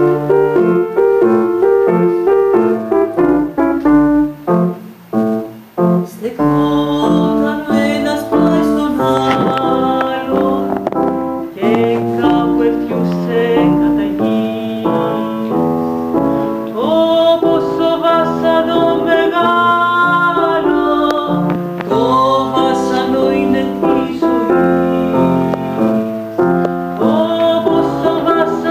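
Piano played live, at first alone. From about six seconds in, a long-held, wavering melody line sounds over the piano chords.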